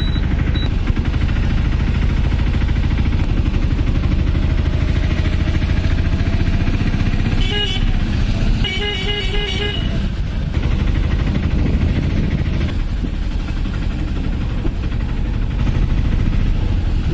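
Steady engine and road rumble from a small vehicle riding along a street. A vehicle horn sounds in short toots about seven and a half seconds in, then in a longer run of toots about nine seconds in.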